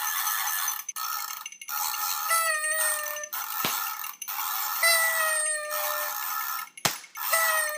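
New Year's party noisemakers: party horns blown in pitched honks about a second long, repeated every two to three seconds over a constant rattling clatter, with two sharp snaps, one about midway and one near the end.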